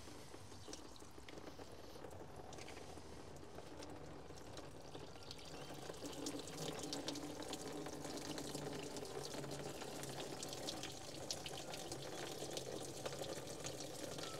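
Water and engine oil trickling from the loosened heat-exchanger hose connections into a catch container. The flow grows heavier about five or six seconds in.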